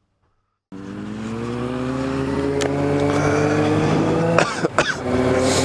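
Vehicle engine running, its pitch rising for about two seconds as it picks up speed and then holding steady; it comes in suddenly after a moment of silence.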